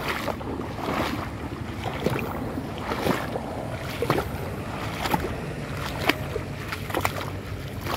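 Shallow sea water sloshing and splashing with each wading step, about once a second, over a steady low rush of wind on the microphone.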